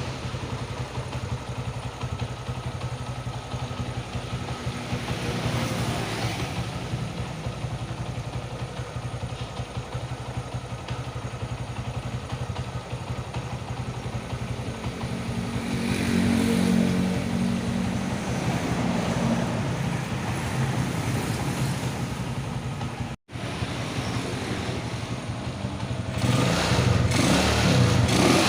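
Honda GL Max motorcycle's single-cylinder engine running steadily at idle; it gets louder a few seconds before the end.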